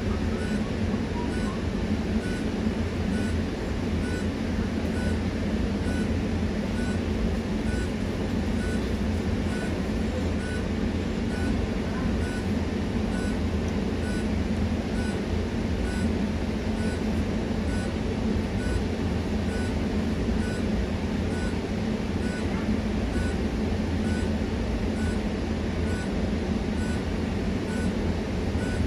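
Bus engine idling steadily with a low hum, heard from inside the cabin while the bus is stopped. A faint regular tick sounds about once a second throughout.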